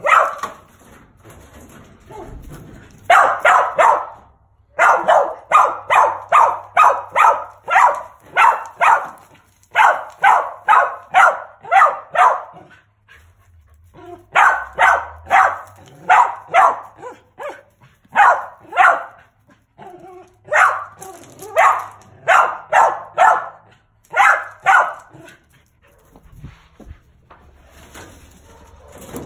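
Mountain feist barking in rapid bouts of sharp barks, about three a second, with short pauses between bouts and a longer lull near the end: a squirrel dog barking treed.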